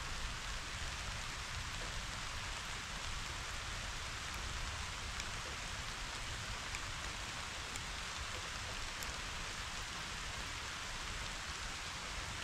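Steady summer rain falling on a meadow of grasses and wildflowers: an even hiss with scattered faint drop ticks and a low rumble underneath.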